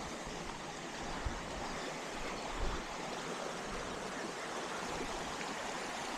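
Small creek flowing: a steady, even rush of running water.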